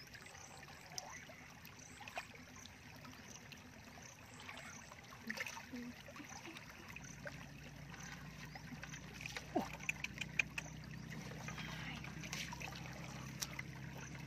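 Hands splashing and sloshing in shallow muddy water while groping for fish, with scattered small splashes and drips, a cluster of them about two-thirds of the way in.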